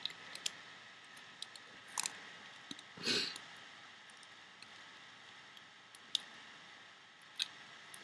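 Faint, scattered small clicks and taps of a plastic loom hook working rubber bands over the pegs of a plastic loom. There is a louder, brief rustle about three seconds in.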